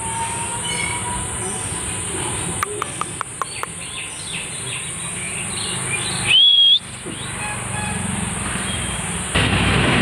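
A steady high insect drone with faint bird chirps runs under the whole stretch. About three seconds in comes a quick run of sharp clicks. About six and a half seconds in, an Indian ringneck parakeet gives one short, loud, upward-bending whistle, and a louder rushing noise starts near the end.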